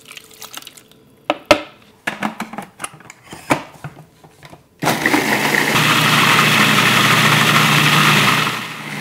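A few clicks and knocks as the food processor is closed up. About five seconds in, its motor starts and runs steadily and loudly, puréeing garlic, ginger and hot pepper paste into a wet sauce, dipping briefly near the end.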